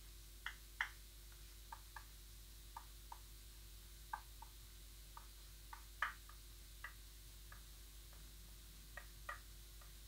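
Chalk writing on a blackboard: faint, irregular short taps and ticks as each stroke of the letters is made.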